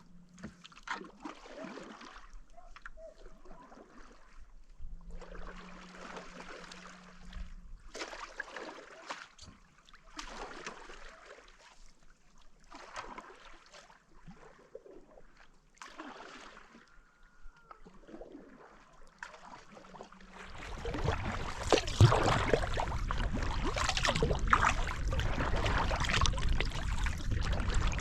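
Kayak paddle strokes dipping and swishing through calm water, a soft stroke every couple of seconds. About twenty seconds in, a louder, steady rushing noise takes over.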